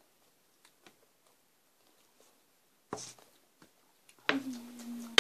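Quiet eating: a few faint clicks of a fork and spoon on a plate and noodle cup, the clearest about three seconds in. Near the end a voice holds one steady note for about a second.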